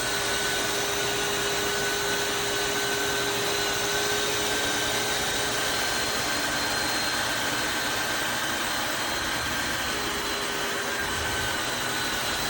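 Tineco Floor One S5 wet-dry vacuum steam mop running steadily, its motor giving a constant whine over the rush of air.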